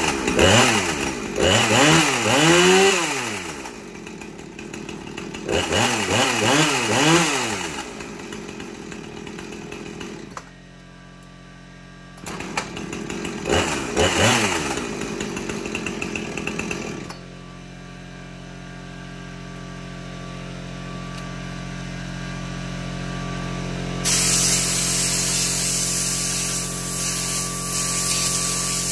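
Husqvarna 455 Rancher two-stroke chainsaw engine revved up and down in three bursts, dropping back to idle between them. It then idles steadily, with a brighter hiss joining near the end.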